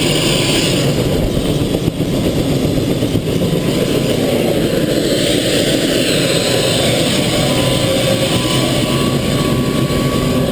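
Helicopter engine and rotor running steadily on the ground: a loud, even rumble with a faint steady whine above it.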